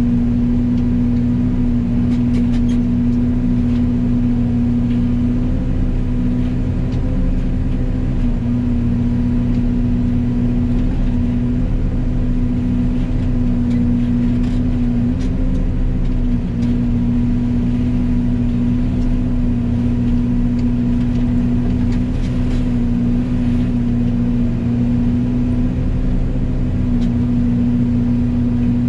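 Yanmar Vio80 excavator's diesel engine and hydraulically driven Fecon FMX36 forestry mulching head running steadily at speed: an even, loud drone with a constant hum.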